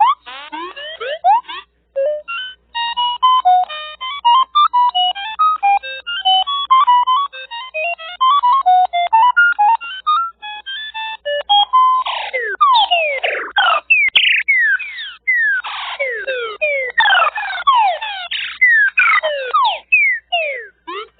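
Synthesized electronic sound effects: a fast run of short beeps jumping between pitches, then, from about twelve seconds in, a stream of quick falling electronic zaps.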